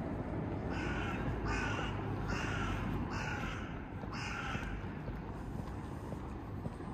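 A crow cawing five times in a row, about one caw a second, over a steady low hum of city background noise.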